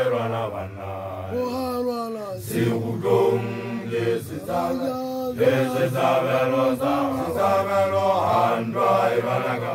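A man's voice chanting a Sesotho praise recitation (lithoko) in long, loud, unbroken phrases with a sing-song rise and fall.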